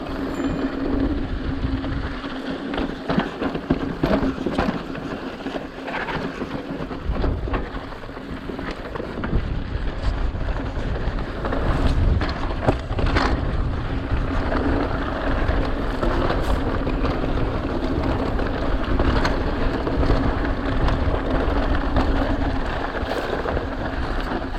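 Mountain bike rolling over a rocky trail. Wind rushes on the action-camera microphone, with a steady low hum and frequent clicks and rattles from the bike.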